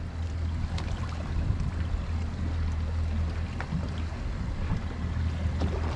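Twin Mercury Verado 300 V8 outboards idling with a steady low hum, under a haze of water and wind noise, with a few faint ticks.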